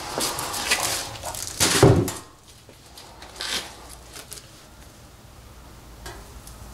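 Plastic rustling and handling noises from a plastic trash bag draped over the fuel tank and a plastic mixing tub being picked up. Busy for the first two seconds, then mostly quiet with a couple of brief rustles.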